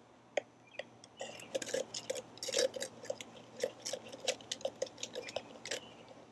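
An uneven run of short, sharp clicks and taps, about three to four a second, coming thickest from about a second in until shortly before the end.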